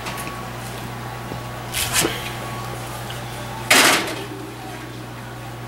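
Wall oven door pulled open with a short clunk about two seconds in, then a metal baking sheet pushed onto the oven rack, a louder scraping rattle just before four seconds in, over a steady low hum.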